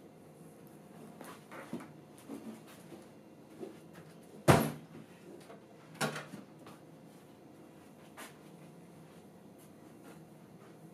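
A heavy wooden-cased reel-to-reel tape recorder (Akai 1700) being set down on a wooden desk: one loud thump about halfway through, then a softer knock. Lighter knocks and handling noises come before and after.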